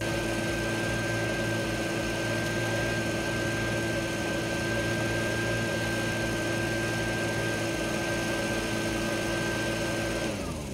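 Small gas engine driving a dry washer's blower, running steadily at high speed, then shut off about ten seconds in, its pitch falling as it winds down.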